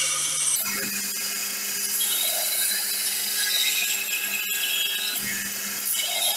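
Electric power tool grinding steel: a steady high hiss over a motor hum, which changes abruptly about half a second in.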